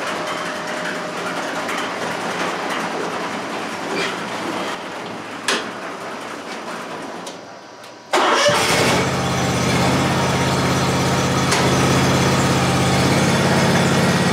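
An overhead garage door rumbling open, then about eight seconds in the Scag Tiger Cat zero-turn mower's engine starts abruptly and runs steadily at idle.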